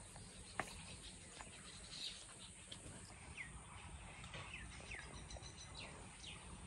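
Faint bird chirps, short falling notes repeated every second or so, over a low background hush, with a single click just after the start.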